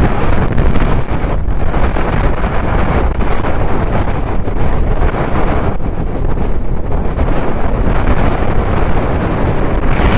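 Strong gusty wind buffeting the microphone, a loud rumbling rush that rises and falls.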